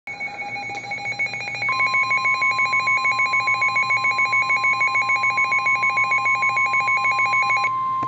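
Weather alert radio sounding a severe thunderstorm warning alarm: a loud, rapidly pulsing electronic beep, joined about two seconds in by a steady high warning tone. The beeping stops just before the end while the steady tone carries on.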